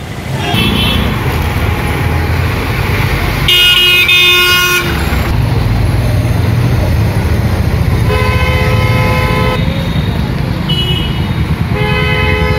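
Motorcycle engines running with a steady low rumble, and vehicle horns honking several times: two long honks a few seconds apart, then shorter ones near the end.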